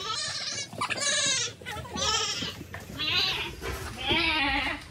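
Goats bleating repeatedly: about five wavering bleats in a row, each roughly half a second long.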